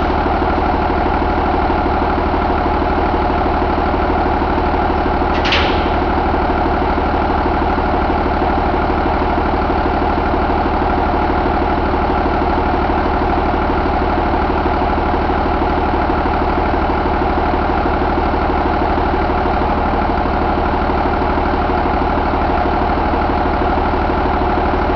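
A 2019 Cummins B6.7 inline-six turbodiesel idling steadily. There is a single brief sharp sound about five and a half seconds in.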